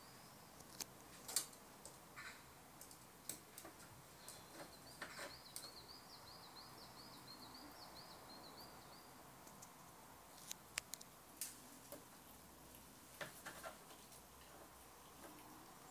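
Faint sharp clicks and taps scattered through a quiet outdoor hush, from a red squirrel moving and feeding on a windowsill. A small bird sings a quick, high chirping trill for about five seconds in the middle.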